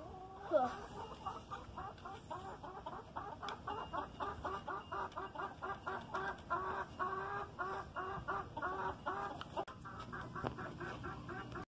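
Chickens clucking steadily, about four clucks a second, with a louder falling call about half a second in.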